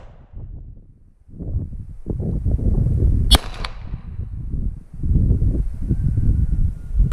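Two pistol shots from a Sig Sauer P320 X5 Legion 9mm firing handloads primed with toy cap-gun caps, about four seconds apart, the second at the very end; each is followed by a brief echo. The caps are setting the rounds off. A low rumbling noise runs between the shots.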